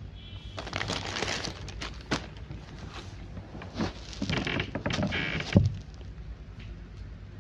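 Handling noise: bursts of rustling with a few sharp clicks, and one loud thump about five and a half seconds in.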